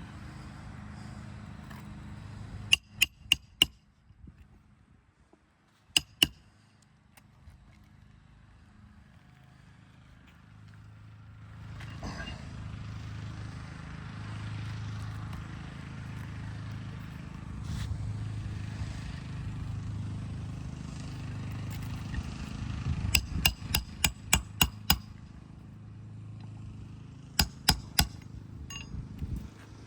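Hammer driving roofing nails into a replacement shingle: a few quick strikes, a single blow, then a fast run of about six strikes near the end followed by three more.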